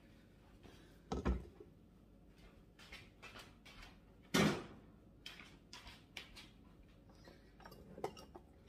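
Household knocks of someone working in a kitchen: a knock about a second in and a louder one about four and a half seconds in, with faint light clicks between.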